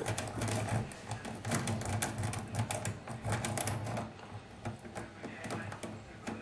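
Lock rake worked in and out of the tight keyway of a Corbin euro profile cylinder under light tension, the pin tumblers clicking rapidly and irregularly. The clicking thins out after about four seconds, over a low steady hum.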